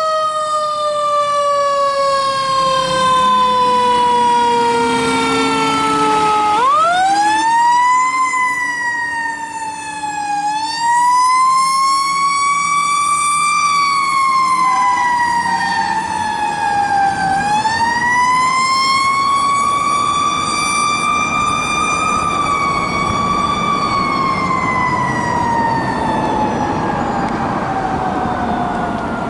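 Fire truck siren on a tiller ladder truck responding to a call: a slow falling wail for the first six seconds, a sharp rise about six and a half seconds in, then slow, uneven wails rising and falling, growing fainter near the end as the truck pulls away. The truck's engine is heard revving up underneath early on.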